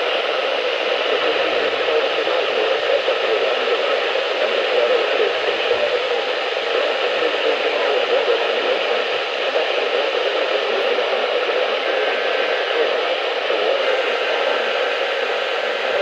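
Radio static: a steady hiss of noise from a radio receiver with no clear signal.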